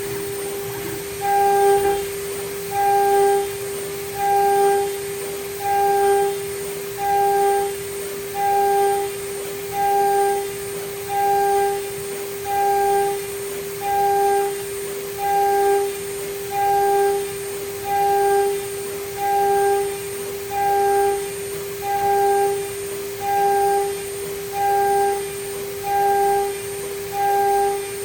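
DIY CNC router running with its 3.5 kW spindle giving a steady high whine, while a higher tone swells in and out in a regular rhythm about every second and a half as the machine repeats the same motion.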